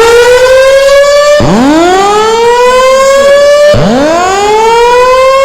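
Fire alarm voice-evacuation speakers sounding a loud slow-whoop tone between recorded evacuation announcements, signalling everyone to leave the building. Each whoop sweeps up in pitch and levels off over a little more than two seconds, and it restarts twice, about a second and a half and nearly four seconds in.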